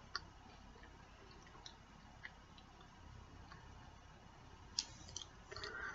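Near silence: quiet room tone with a few faint, irregular clicks and ticks, bunched together about five seconds in.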